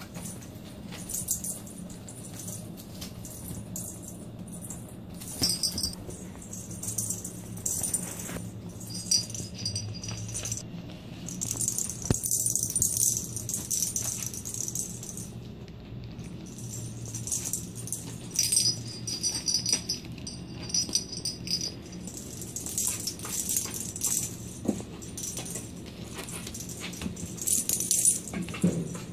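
Small metal bell toy jingling and rattling in irregular bursts as kittens bat it about, with scattered light knocks.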